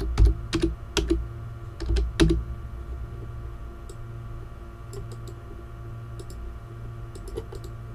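Keystrokes on a computer keyboard: a short burst of typing in the first couple of seconds, then a few fainter clicks later on, over a steady low hum.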